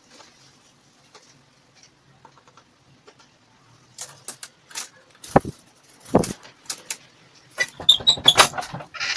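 Irregular knocks, clicks and rattles on a plastic-bottle bird trap, starting about four seconds in, with two heavier knocks and a quick cluster of rattling near the end.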